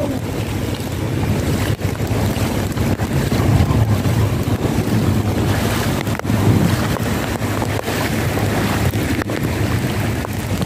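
Fast-flowing brown floodwater rushing across a street in a steady rush, with wind buffeting the microphone.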